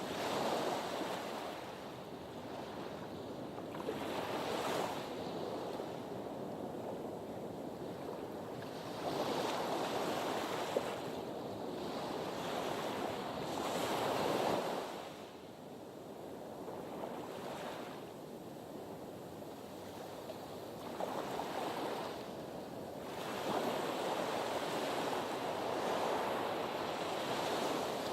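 Sea waves washing against a harbour breakwater, the surf swelling and ebbing in surges every few seconds.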